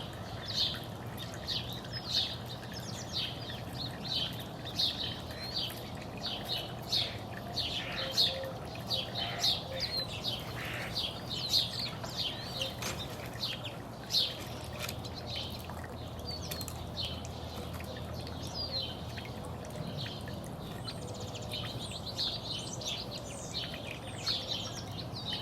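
Many small songbirds chirping in short, quick, overlapping calls, over a steady low hum.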